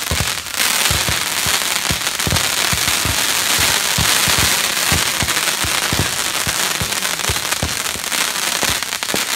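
Consumer fireworks going off: a continuous crackling hiss packed with rapid, sharp pops and bangs.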